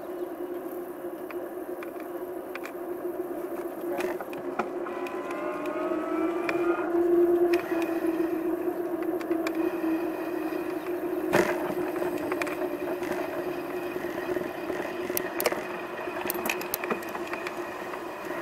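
Motor vehicle sound: a steady hum, with an engine rising in pitch about five seconds in as it speeds up, getting louder and then easing off. Scattered clicks throughout.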